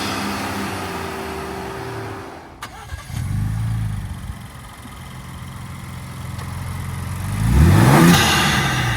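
Ford Bronco Raptor's 3.0-litre twin-turbo EcoBoost V6, fitted with a cold air intake, being revved. The engine falls back from a rev, there is a sharp click about two and a half seconds in, it runs low for a few seconds, then revs up sharply near the end and drops back.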